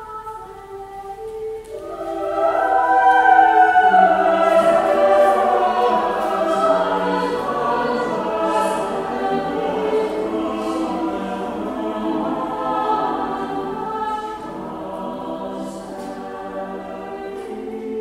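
Choir singing, several voices holding long overlapping notes, swelling louder about two seconds in and easing off near the end.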